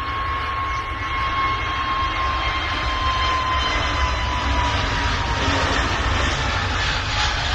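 Jet airliner's engines at takeoff power: a steady roar with a high whine that slowly falls in pitch, growing louder.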